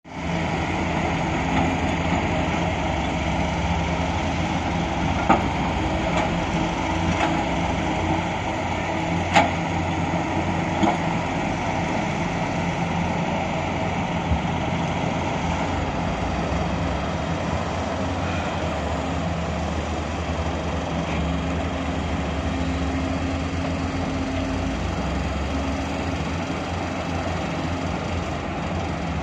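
Heavy diesel machinery, hydraulic excavators and dump trucks, running with a steady engine drone. A few sharp knocks stand out in the first half, the loudest about nine seconds in.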